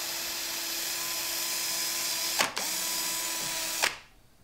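Electric drill running steadily, its bit grinding against the hardened steel anti-drill plate of a Schlage deadbolt without cutting through. The drill briefly lets off about two and a half seconds in, runs again, and stops shortly before the end.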